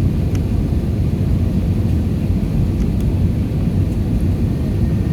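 Steady low rumble of engines and airflow heard inside the cabin of an Airbus A320-214 in flight.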